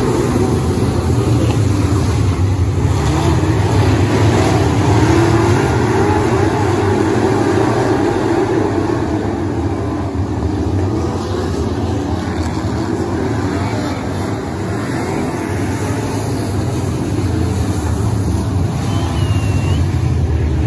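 Engines of several dirt-track race cars running together around the oval, a steady loud drone that eases a little about two-thirds of the way through.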